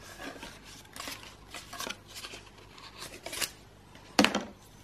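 Packaging being handled as a bike computer mount is pulled from its cardboard backing card and plastic wrap: short, irregular rustles and clicks, with a sharper click a little after three seconds and another just past four.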